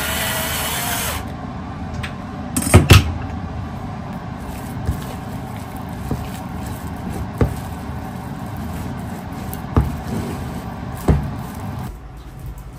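A plastic spatula mixes thick mashed sweet potato salad in a glass bowl, with a steady soft scraping and squishing and sharp clacks where the spatula strikes the glass: a loud pair about three seconds in, then single knocks every second or two.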